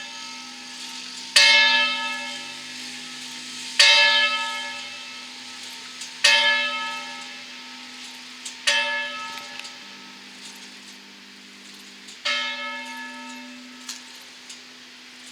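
Church bells ringing: five strokes about two and a half seconds apart, with a longer gap before the last. Each stroke rings out and slowly fades over a steady low hum.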